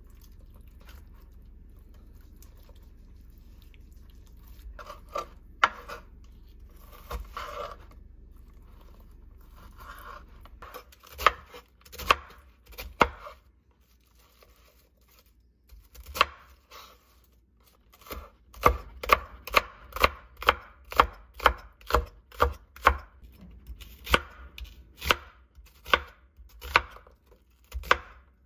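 Chef's knife chopping cabbage and green onion on a wooden cutting board. A few separate cuts come first, then from about halfway a steady run of crisp knife strikes, about two a second.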